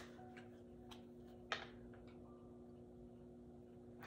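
Near silence: a faint low steady hum, with one soft tap about one and a half seconds in and a few fainter ticks.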